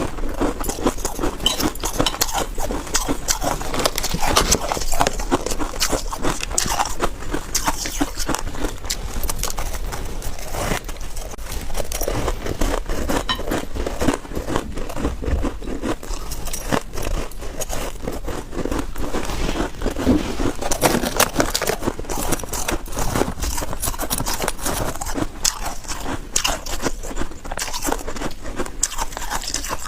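Freezer frost ice being bitten and chewed: a steady run of crisp, crackly crunches.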